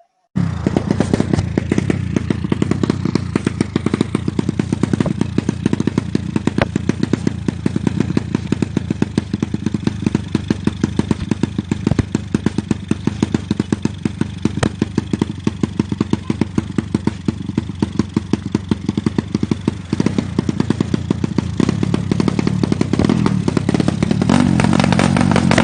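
Drag-racing motorcycle engine running with a fast, steady train of exhaust pulses, revving up briefly near the end.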